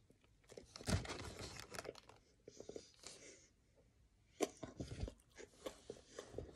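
Close-up mouth sounds of a person biting and chewing a mouthful of Whopper hamburger: wet crunching and clicking in two spells, one starting about half a second in and another from about four and a half seconds.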